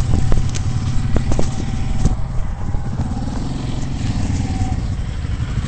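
Quad bike (ATV) engine running steadily close by, with a few sharp knocks in the first two seconds.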